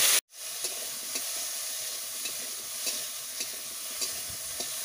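Green banana pieces sizzling in hot oil with whole cumin in a steel kadai, with a metal spatula scraping the pan about twice a second as they are stirred. The sound drops out for a moment just after the start, then the sizzling resumes steadily.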